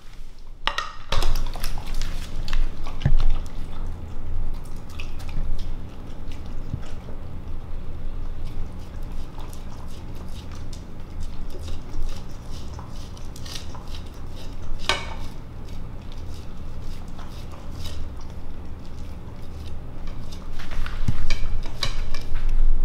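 A dog eating pieces of meat off ceramic plates: wet chewing and licking, with the plates clinking and scraping on a hardwood floor. A sharper clack comes about a second in, as the plates are set down.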